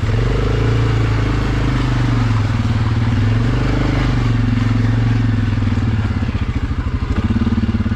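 ATV engine running steadily at low trail speed, with an uneven throbbing pulse for about a second and a half near the end.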